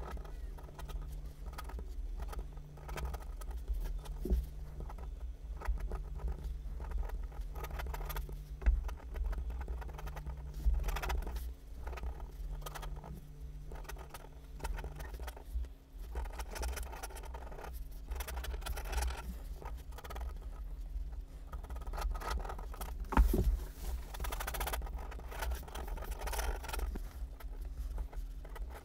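Pen scratching across paper in quick, irregular sketching strokes, with a few sharper ticks of the pen meeting the sheet. A faint steady low hum runs underneath.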